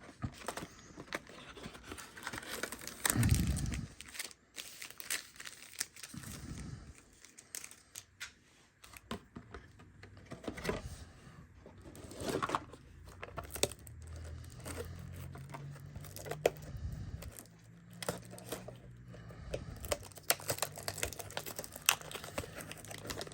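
Cardboard and plastic wrapping of a trading-card display box being torn open and crinkled by hand, in scattered rustles and clicks.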